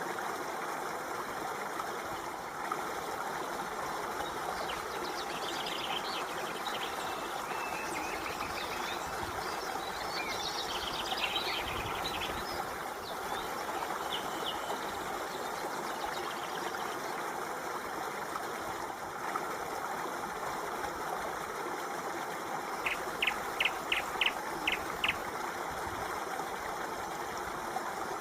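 A stream flowing steadily, with birds chirping over it: scattered calls in the first half, and a quick run of six short notes a little past two-thirds of the way through.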